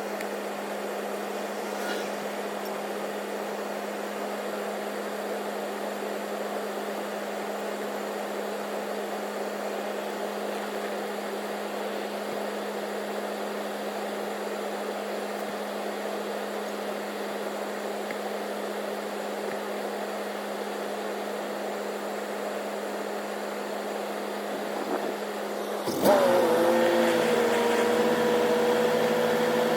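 Steady machine hum with a constant low drone; near the end a second, louder machine starts abruptly, its pitch dipping briefly and then settling into a steady whine.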